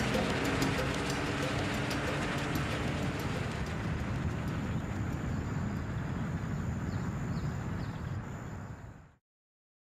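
Audience applauding and cheering as a live salsa song ends, with a few whistles, fading out to silence about nine seconds in.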